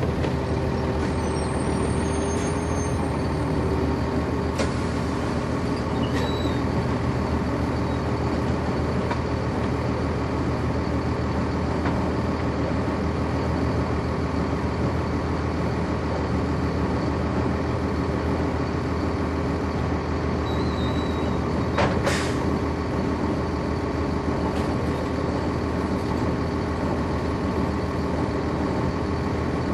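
Cummins ISC diesel engine and ZF Ecomat automatic transmission of a 1999 NovaBus RTS city bus, heard from on board and running steadily, with a constant hum over the engine drone. A brief sharp noise stands out about three quarters of the way through.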